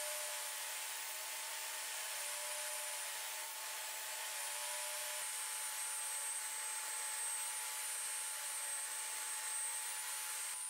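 Jobsite table saw running and cutting shallow rebates in a plywood board: a steady, even whirr of the blade through the wood with a faint constant whine.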